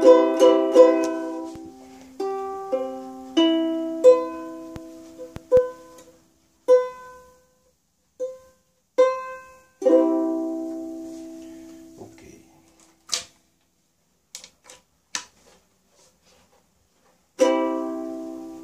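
Electric ukulele played through an amplifier: single chords struck one at a time, each left to ring and fade. Near the middle there is a pause of a few seconds broken by a few sharp muted clicks, then one more loud chord near the end.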